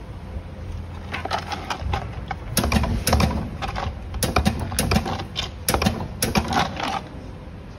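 Battery spot welder welding a nickel strip onto cylindrical lithium-ion cells: a quick irregular series of sharp clicks and snaps over a low steady machine hum.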